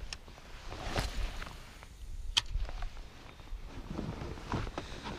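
Irregular knocks and rustles of spinning tackle being worked in an inflatable boat, with one sharp click about two and a half seconds in.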